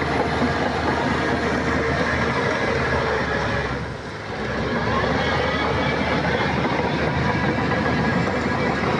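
Crawler bulldozer's diesel engine running under load, with the clanking rattle of its steel tracks. The loudness dips briefly about four seconds in.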